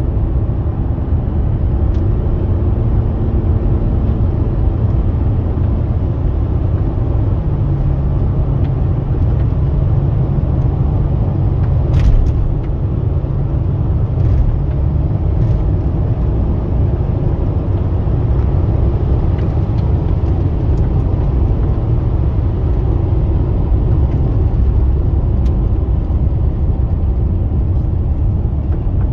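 Freshly rebuilt 5.7L Hemi V8 of a 2006 Dodge Charger on the move, heard from inside the cabin as a steady low engine and road rumble. A single sharp click sounds about twelve seconds in.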